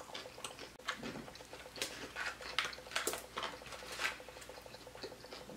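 Close-miked chewing of crunchy fried pork rinds (chicharrones), a run of irregular crackly crunches.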